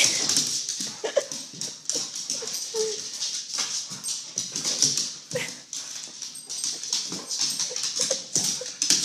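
Pit bull-type dog whimpering in short, scattered whines, with many quick clicks throughout.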